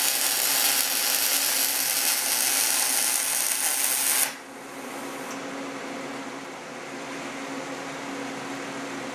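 Short-circuit MIG welding arc crackling steadily as a Boa308i bore welder runs .035 wire around inside a small hole in a steel casting. About four seconds in the arc cuts off suddenly, leaving a quieter steady machine hum.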